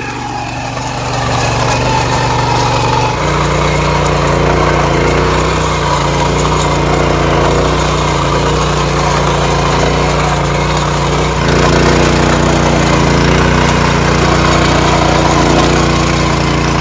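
The small air-cooled engine of a walk-behind power tiller runs under load while its rotary tines churn hard, dry soil. The engine note steps up about three seconds in and changes again about eleven seconds in.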